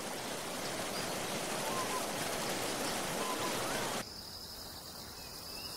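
Natural outdoor ambience: a steady rushing hiss for about four seconds, then a sudden switch to a quieter background with a steady high insect drone, like crickets.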